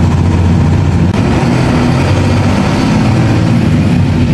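Converted coach bus's diesel engine running steadily under way, heard from inside the driver's cab as a low, even drone with road noise. About a second in the sound shifts slightly where the footage cuts.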